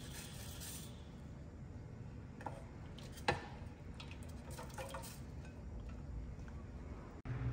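A few scattered light clinks and knocks of a cooking pot and kitchen utensils, the sharpest a little over three seconds in, over a low steady hum.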